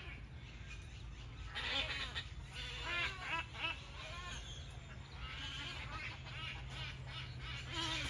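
A flock of birds calling: many short, arched calls overlapping and repeating, starting about a second and a half in, over a steady low hum.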